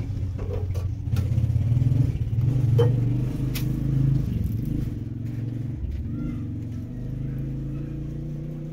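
An engine running steadily, loudest and most uneven in the first few seconds, with a few sharp clicks over it early on.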